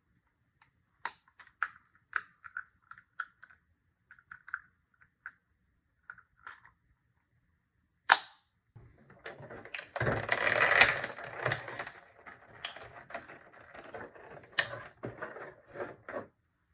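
Toy packaging being handled and opened during an unboxing. It starts as light, scattered clicks and taps, then a sharp snap about eight seconds in. After that comes several seconds of rustling mixed with clicks, which stops shortly before the end.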